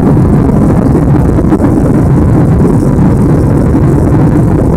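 Boeing 747 on its takeoff roll, heard inside the cabin: the four turbofan engines at takeoff thrust together with the rumble of the wheels on the runway, a loud, steady, low-pitched noise.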